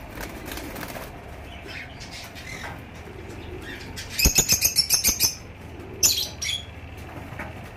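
Small caged parrots chirping faintly. About four seconds in, a loud rapid run of shrill calls comes with a flurry of wing flapping lasting about a second, followed by two more sharp calls a second later.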